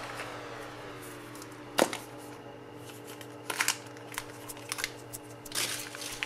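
Light handling sounds of small objects: a sharp click a little under two seconds in, a few softer clicks a second and a half later, and a patch of rustling clicks near the end, heard over faint lingering tones.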